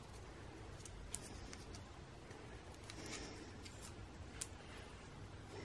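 Faint hand-handling sounds: soft rustling and a few light clicks as greasy fingers work at a small tape-wrapped part, with two sharper ticks about a second in and near the end.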